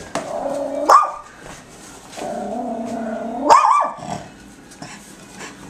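Small dog growling in a long, steady rumble that breaks into a sharp bark, twice over. It is a frightened dog's warning at a cardboard mail-carrier cutout it is scared of.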